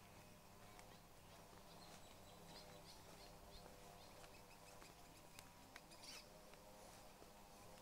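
Near silence: faint outdoor ambience with a low steady hum, scattered faint high chirps and a few soft ticks.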